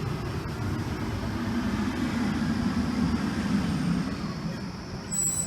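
Fire truck engine running with a low rumble that swells for a couple of seconds and then eases off near the end.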